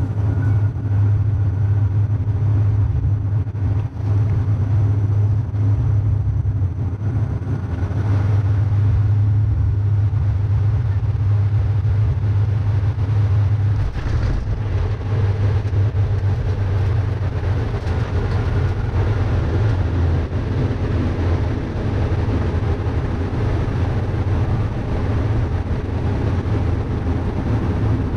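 Cabin noise of a De Havilland Canada Dash 8-400 turboprop during landing: the steady, loud drone of its Pratt & Whitney PW150A engines and six-bladed propellers heard from beside the engine. About halfway through, on the runway rollout, the drone turns rougher with a deeper rumble added.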